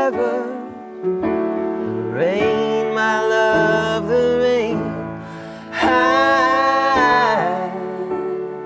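Folk song: a voice singing long wordless notes that bend in pitch, over a steady sustained instrumental accompaniment.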